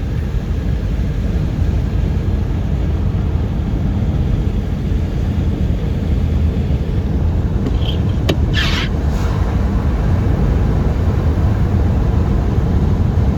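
Steady low road and engine rumble heard from inside a moving car. A click about eight seconds in is followed by a brief higher-pitched sound.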